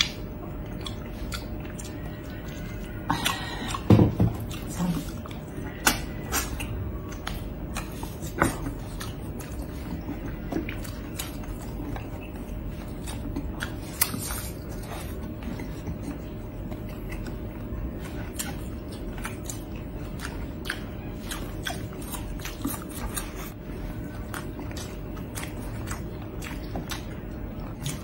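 Close-miked chewing and lip-smacking of two people eating braised pork hock and rice with their hands: many short clicks and smacks, with a louder cluster about four seconds in.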